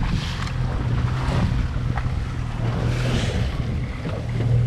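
Small fishing boat's engine running with a steady low hum, under wind on the microphone and surges of water noise.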